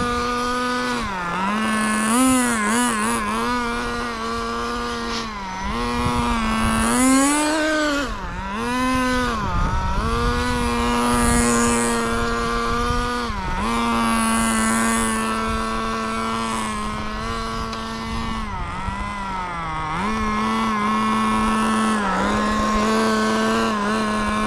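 Kyosho FW06 1/10-scale RC touring car's small nitro engine running at speed, holding a steady high pitch for stretches and repeatedly dropping and surging back as the throttle is released and reopened.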